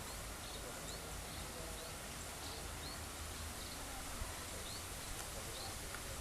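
Outdoor ambience: a bird repeats a short, high, rising chirp every half second to a second, over a steady low rumble and hiss.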